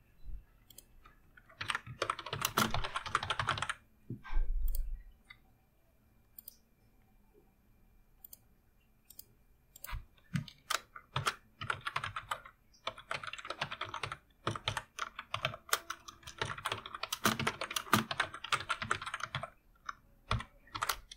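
Typing on a computer keyboard: a short burst of keystrokes about two seconds in, a lull, then a longer run of fast typing from about halfway through until near the end. A short low thump comes just after the first burst.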